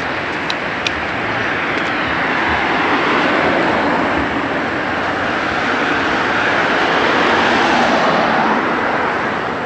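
Road traffic passing: a car's tyre and engine noise swells and fades as it drives by, loudest near the end.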